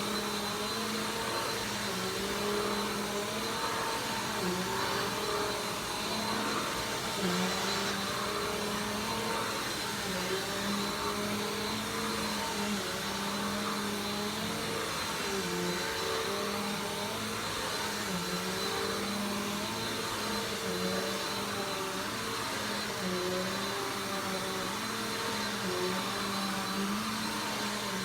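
Vacuum cleaner running steadily, its motor pitch dipping briefly now and then over a constant rushing hiss of air.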